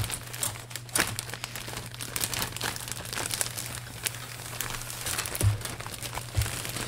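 Clear plastic bag holding plastic model-kit sprues crinkling as hands handle it, with many short sharp crackles.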